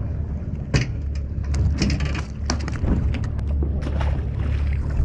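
A run of irregular sharp clicks and knocks over a steady low rumble, the sound of handling on a fishing boat.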